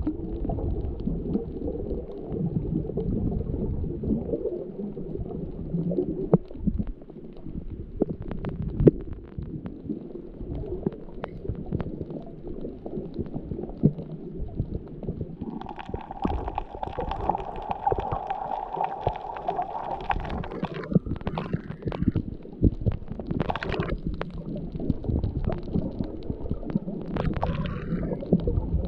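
Muffled underwater sound through a GoPro's waterproof housing: a low churning rumble of water movement with scattered sharp clicks. About halfway through, a steady humming tone joins for about five seconds, then stops.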